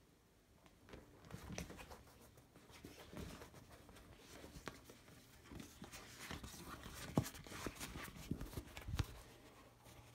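Soft natural-rubber hip waders being handled and folded by hand: faint rustling and rubbing of the rubber, with scattered light clicks and two sharper taps about seven and nine seconds in.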